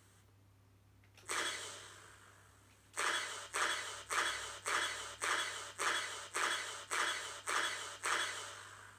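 Gun or laser shot sound effect played through the small speaker of an Arduino Nano-driven 3D-printed prop sword: one shot about a second in, then a burst of ten shots at about two a second, the sword's held-fire-button ten-shot mode.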